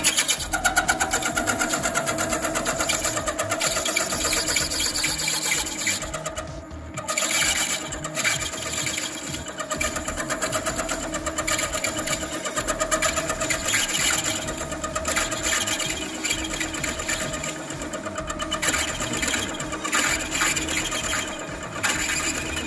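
Centre lathe running while a parting tool cuts a groove into a spinning brass bar supported by a rotating centre. The cut is a fast, even rattle, with a brief lull about six to seven seconds in.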